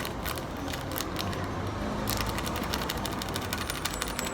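Quick, irregular light clicks and scraping of a spoon against a plastic container as baking soda is mixed into boric acid water.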